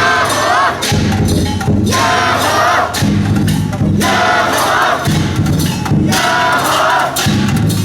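Jasen (Nagasaki Kunchi dragon-boat) practice: a team of rope-pullers chanting and shouting in unison about every second and a half over steady percussion beats, as the boat is hauled round.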